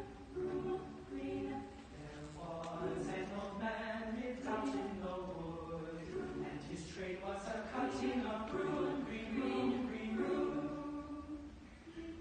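Mixed chamber choir of men's and women's voices singing together in parts, held notes moving in phrase after phrase, with a brief drop in level near the end.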